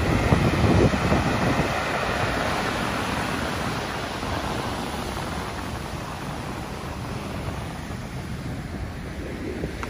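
Sea surf breaking and washing up a sand beach, loudest in the first second or two and then easing into a steady wash. Wind buffets the microphone.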